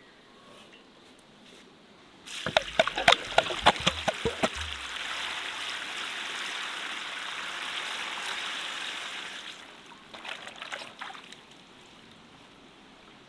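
Water poured onto a heap of freshly cut garlic scapes, splashing hard for the first couple of seconds, then running in a steady stream for about five seconds before it stops. A few short, irregular knocks and rustles follow near the end.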